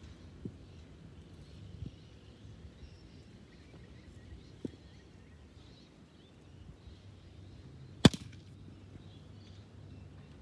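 A single sharp crack of a cricket bat striking the ball about eight seconds in, the loudest thing here, with faint bird chirps and a few light taps before it.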